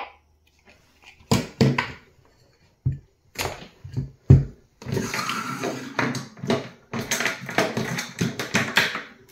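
Handling noise from unplugging a Kenwood KMC-45 speaker mic: a series of sharp plastic clicks and knocks as the plug is pulled and the mic is set down, the loudest about four seconds in. After that comes a few seconds of rustling and scraping from the mic and its coiled cord being moved across the table.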